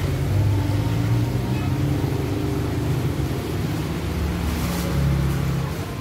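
Heavy rain with strong gusting wind, a steady hiss over a deep, shifting rumble.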